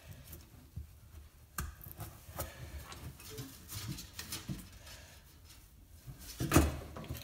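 Hands fitting a Velcro strap onto a tape-measure antenna element on a plywood bench: scattered light clicks and taps. There is a louder brushing sound about six and a half seconds in, as a flannel sleeve passes close to the microphone.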